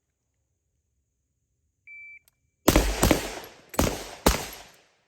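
A shot timer beeps once, and about half a second later an AR-15-pattern rifle chambered in 7.62x39 fires about four quick shots in two pairs, each with a trailing echo.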